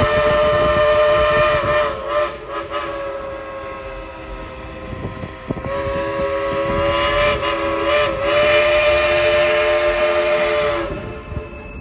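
Engine 70's Central of Georgia Crosby three-chime steam whistle, blown and played by the engineer as a sustained chord. A loud blast eases to a softer stretch, then a second loud blast with brief sags in pitch as the valve is worked. It cuts off about eleven seconds in.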